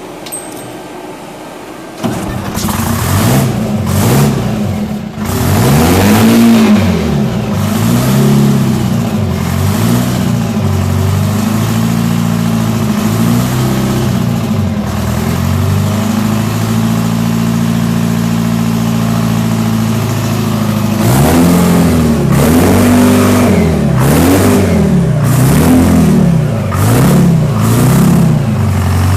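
Engine of a 1950 Oliver pulling tractor with twin blowers starting about two seconds in, then revved up and down repeatedly. It settles to a steady idle for several seconds, then gets another run of quick revs near the end.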